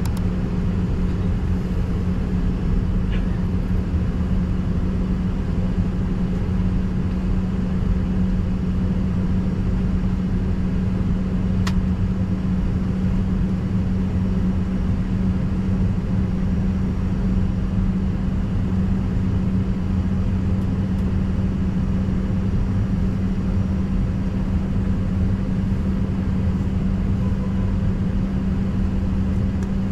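Steady cabin drone inside an Embraer ERJ-145 parked at the gate before engine start, with the air-conditioning running: an even low rumble under a constant hum. One faint click about twelve seconds in.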